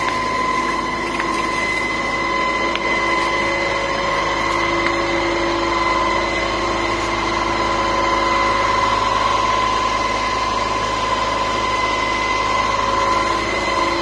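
Fire truck's engine and water pump running steadily, with a constant high whine over the engine drone.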